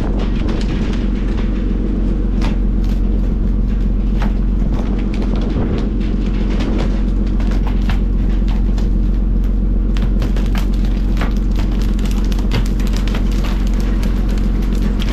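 Steady low drone of the fishing boat's engine, with scattered sharp slaps and knocks of skipjack tuna being poled aboard and flapping on the wet steel deck, more frequent in the second half.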